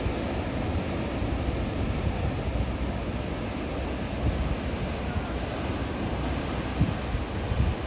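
Wind buffeting the microphone, with a steady wash of ocean surf behind it.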